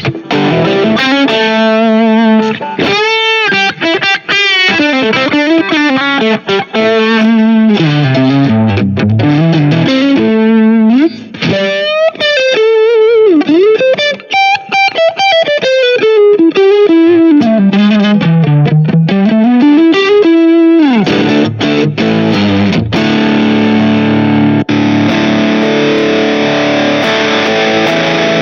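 Smiger LG2 Pro electric guitar played with distortion: a single-note lead line with string bends and vibrato, changing about two-thirds of the way through to sustained, ringing chords.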